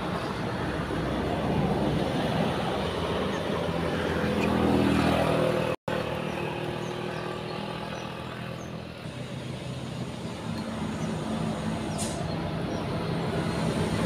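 Road traffic on a hill: motorbike engines pass, then a Mitsubishi Fuso truck's engine climbs toward the microphone, growing louder near the end. The sound cuts out for an instant about six seconds in.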